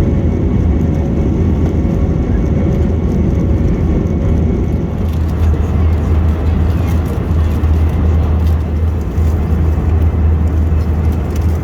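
Steady low drone of engine and air noise inside the cabin of an Airbus A321 airliner.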